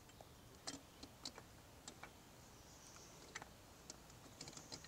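Near silence broken by faint, scattered light clicks and taps, more of them near the end: a carburetor gasket and then the carburetor being fitted onto the engine's intake studs.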